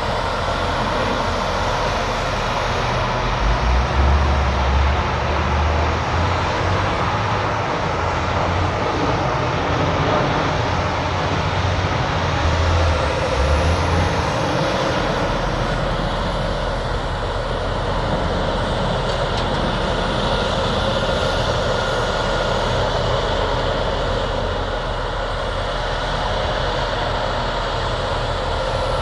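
Heavy diesel construction machinery running steadily, with a deeper low rumble from about four to fourteen seconds in.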